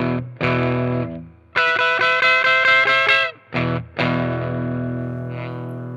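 Fender Mustang electric guitar played through a CKK Royal Fuzz/Distortion pedal: distorted chords struck in short stabs, one held for nearly two seconds. A last chord about four seconds in is left to ring out and slowly fade.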